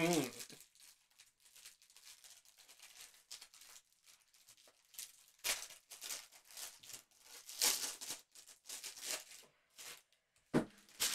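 Trading-card hanger box and its wrapper being torn open and handled: short scattered tearing and crinkling rustles, the loudest about five and a half, eight and ten and a half seconds in.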